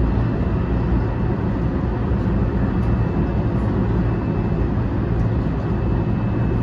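Running noise of a JR West 223 series 2000-subseries electric train heard inside motor car MoHa 223-2145, which has Hitachi IGBT VVVF traction: a steady, heavy rumble of wheels on rail with a faint steady high whine over it, the train running at an even speed.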